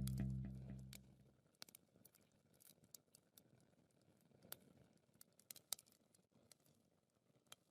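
Guitar music fading out over the first second, then near silence with a few faint, scattered clicks.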